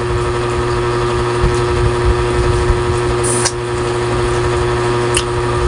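A steady machine hum with several constant tones and a low rumble, like an appliance motor running, with a few short mouth clicks of shrimp being eaten by hand after about three seconds.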